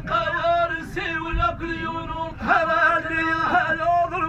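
A man's voice chanting a poem in a drawn-out sung melody, holding long wavering notes into a microphone.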